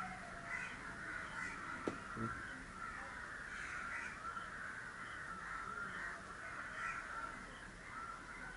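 A faint, continuous chorus of animal calls in the background: a wavering, mid-pitched chatter that never pauses. A single short click about two seconds in.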